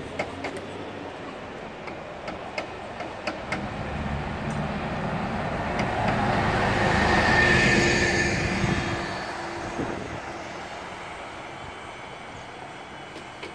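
Double-decker bus driving past close by: its engine and tyre noise swell to a peak about seven seconds in and fade as it moves away, with a brief high whine at its closest point.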